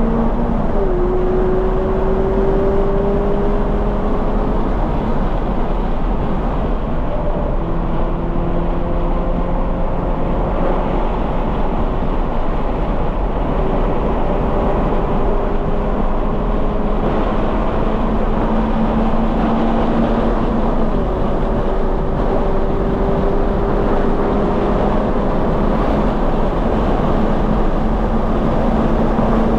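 A 2020 Toyota 86's 2.0-litre flat-four with a Corsa cat-back exhaust, pulling hard on track. Its pitch climbs slowly for several seconds at a time and drops sharply several times, over steady wind and tyre noise.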